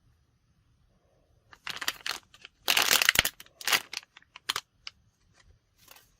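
Plastic wrapping crinkling and rustling in irregular bursts, starting about a second and a half in and dying away to a few small clicks.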